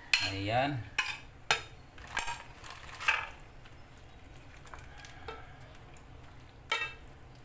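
Metal spoon stirring soup in an aluminium pot, clinking sharply against the pot several times in the first three seconds and once more near the end.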